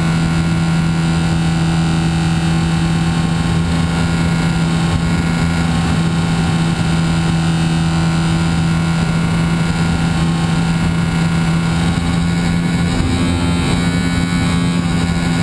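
Radio-controlled model airplane's motor and propeller running at a steady speed, heard from an onboard camera, with wind rush on the microphone. The pitch shifts slightly near the end.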